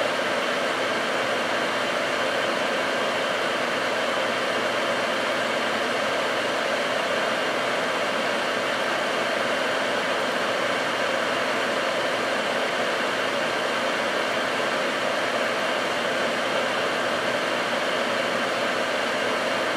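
Fume extractor fan running steadily: an even rushing noise with a faint hum in it, unchanging throughout.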